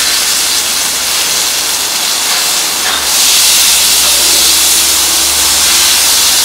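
Beef smash-burger patty sizzling on a hot Blackstone flat-top griddle. The sizzle gets louder about three seconds in, as the patty is turned over with a metal spatula.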